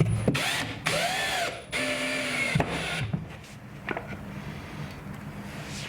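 Power drill driving screws through drywall into a wooden backing board: two bursts, a short one then one of about a second, the motor's pitch rising and falling, then a few light clicks.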